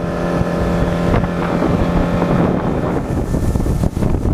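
Suzuki outboard motor running at speed with the boat's wake rushing, and wind on the microphone. The steady engine tone drops away about three seconds in, leaving wind and water noise.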